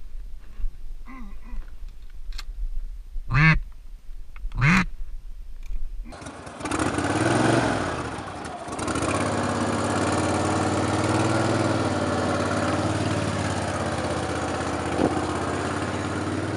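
A few short duck quacks, the loudest two about three and a half and four and a half seconds in. About six seconds in, a steady low drone takes over and holds to the end.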